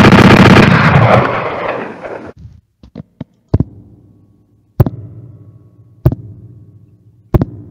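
A very loud, distorted blast that fades away over about two seconds. It is followed by single sharp knocks, about one every second and a quarter, each with a short low ringing tail.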